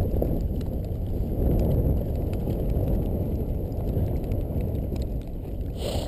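Dog sled moving over packed snow: a steady low rumble from the runners on the trail and wind against the microphone, with scattered light clicks.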